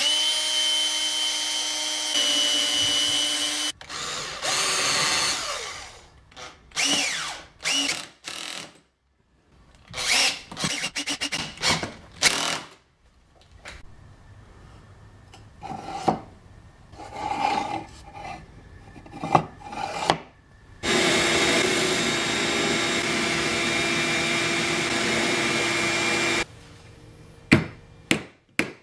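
A power tool cutting or drilling wood, running steadily in two long spells with shorter bursts of work between them. Several sharp taps near the end.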